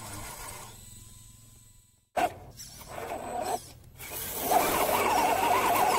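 Small electric motor and gearbox of a scale RC crawler straining as its tyres churn in mud. The sound breaks off about two seconds in, comes back in short bursts, and in the last two seconds turns into a louder, steady, wavering whine.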